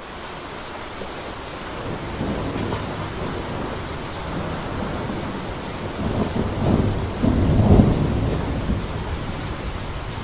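Steady rain with a rolling thunder rumble that swells to its loudest about seven to eight seconds in, then eases off.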